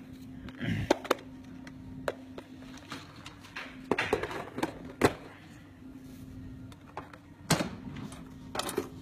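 Scattered light clicks and taps of plastic nail tips being handled and sorted from a tip box, over a steady low hum.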